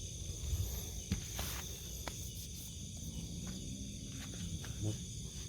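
Night chorus of crickets: a steady high chirring that holds at two pitches, with a few sharp ticks and low rustling close to the microphone.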